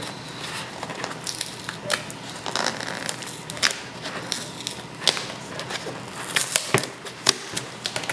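A cardboard shipping box being opened by hand: packing tape peeled and torn from the top, with irregular crackling and sharp clicks of cardboard and tape.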